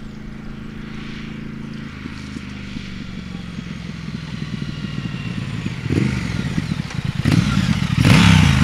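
Triumph Thruxton RS's 1200cc parallel-twin engine through its stock road-legal exhaust, approaching and passing under way. The engine note grows steadily louder, with a few louder throttle surges from about six seconds in, and is loudest at about eight seconds as the bike goes by.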